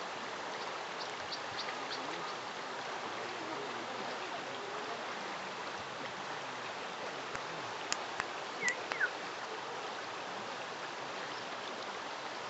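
Shallow river running steadily over stones. A few sharp clicks and a brief falling chirp sound about eight to nine seconds in.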